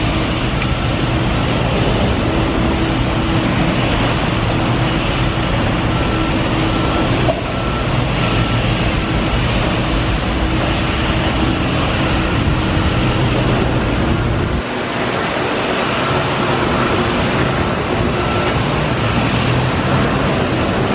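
Heavy diesel construction machinery running on a demolition site: a loud, steady engine drone. A repeated high beeping comes and goes over it.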